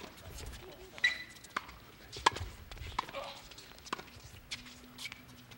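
Tennis rackets hitting the ball in a quick rally, a string of sharp pops roughly once a second, the loudest a little over two seconds in.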